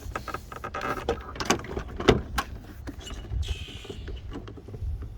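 Plastic clicks, rattles and knocks as a car's interior door trim panel is handled and hooked onto the door, with one sharp knock about two seconds in.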